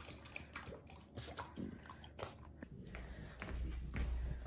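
A dog lapping water from a slow-drinking float bowl, nosing down its floating plate: quick, irregular wet laps and clicks. A low hum comes in near the end.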